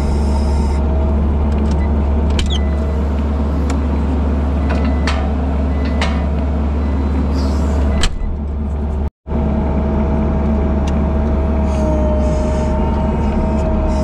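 Skid loader engine running steadily with a low rumble and a thin steady whine, with a few sharp clicks and knocks in the first half. The sound drops out for a split second just past the middle.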